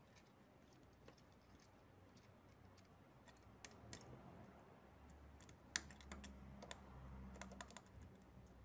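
Faint clicking and light scraping of a steel feeler gauge blade slid in and out between a camshaft lobe and valve bucket, checking the valve clearance by feel. The clicks come irregularly and grow busier in the second half, with one sharper click about two thirds of the way in.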